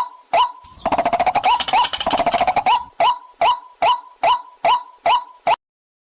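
Waterhen calls: short, sharp notes repeated about two a second, with a rapid chattering run of calls about a second in, then the single notes again until they cut off abruptly near the end. This is a recorded call of the kind played as a lure.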